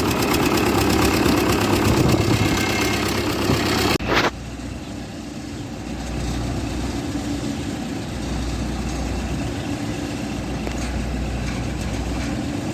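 Niva SK-5 combine harvester's diesel engine and machinery running loud; about four seconds in the sound drops abruptly to a quieter, steady idle that carries on.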